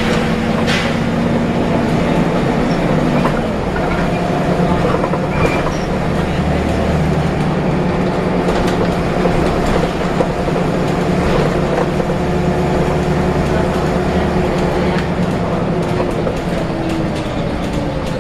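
Volvo B7RLE bus engine and drivetrain running under way, a steady drone with light rattles and clicks from the body. The engine note drops about three and a half seconds in as the gearbox changes up, and falls again near the end as the bus slows.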